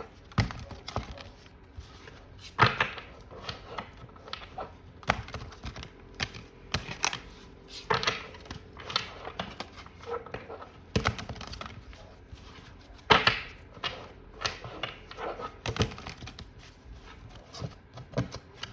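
Tarot cards being shuffled and handled: irregular taps, clicks and riffles of the deck against a table, with two louder knocks, one near the start and one about two-thirds of the way in.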